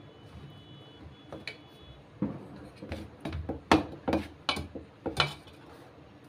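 Hand kneading maida dough in a steel plate: soft rubbing, then from about two seconds in an irregular run of sharp clinks and knocks as the wrist's glass bangles and the hand strike the plate.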